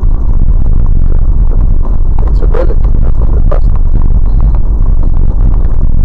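Vehicle driving along a snowy dirt road, heard from inside the cabin: a loud, steady low rumble of engine and tyres, with a few short wavering sounds over it near the middle.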